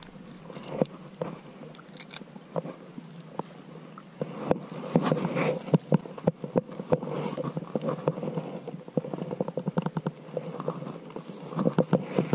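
Close-up handling noise: quick small clicks and crackles of gloved hands working a fishing hook, line and bait, getting busier about four seconds in.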